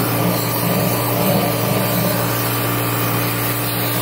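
Stick-welding arc crackling steadily as a nickel electrode lays a bead on cast iron, with a steady low hum underneath.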